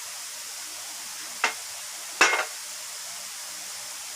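Two brief knocks, a sharp click about one and a half seconds in and a slightly longer clack just after two seconds, over a steady background hiss.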